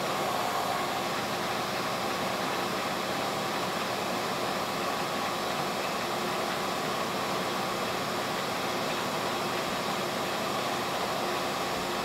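Steady, even background noise of a fan-like machine running, with a faint steady hum in it and no distinct knocks or clicks.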